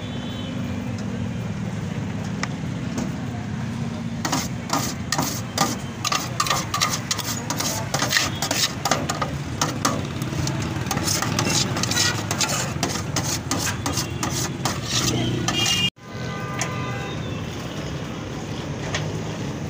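A steady low rumble of street traffic, with a quick run of sharp metallic clicks and scrapes from about four seconds in as a knife works the chicken shawarma cone on its spit. The clicks cut off suddenly near the end.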